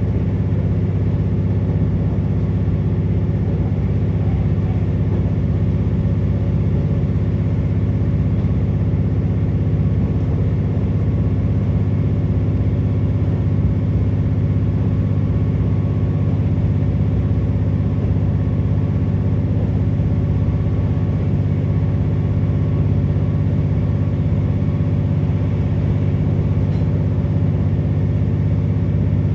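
Cabin sound of a KiHa 47 diesel railcar under way: its diesel engine drones at a steady speed, mixed with the rolling noise of the wheels on the rails.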